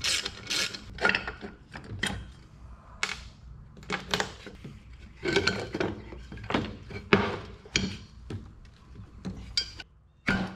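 Hammer tapping a makeshift driver to knock a worn bushing out of a transmission housing: an irregular run of about twenty sharp knocks.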